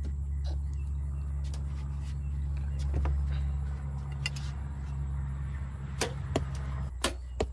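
A steady low hum while a compound bow is held at full draw, then several sharp clicks near the end as the bow is shot.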